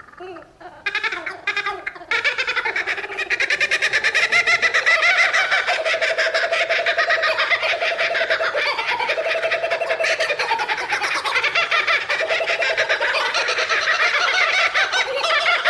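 Laughing kookaburras calling together in their laughing chorus: soft opening notes that swell, about two seconds in, into a loud continuous cackle of rapid repeated hoots.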